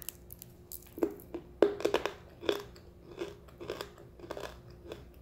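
A person biting and chewing a chunk of dry white kaolin clay: a run of about seven crisp crunches, the first about a second in.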